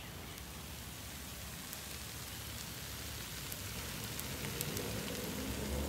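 Faint, steady sizzle of food frying on a hot flat-top griddle, with a few light ticks.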